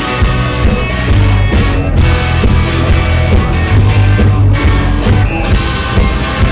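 A rock band playing a passage with electric guitar, bass and drums, with a steady beat of about four drum strikes a second and little or no singing.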